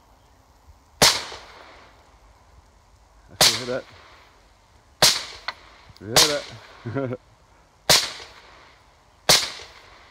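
AR-15 rifle fired six times in single shots, one to two and a half seconds apart, each a sharp crack with a short echoing tail.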